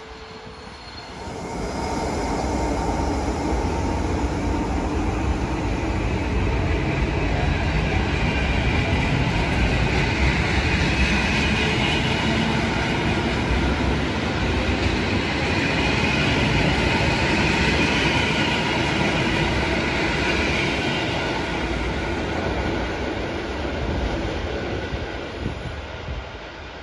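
Passenger train of locomotive-hauled coaches rolling past along the platform. The rumble swells about two seconds in, holds loud and steady, then fades near the end as the last coach draws away.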